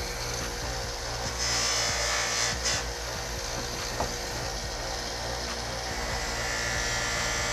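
Bench buffer running steadily, its motor humming under the hiss of the spinning cloth buffing wheel, with a louder stretch of hiss about a second and a half in. Past six seconds in, an aluminium cover is pressed against the wheel to polish it, adding a louder, higher rubbing sound.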